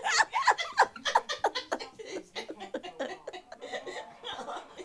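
A person laughing: quick snickers over the first second or so, trailing off into quieter, sparser chuckles.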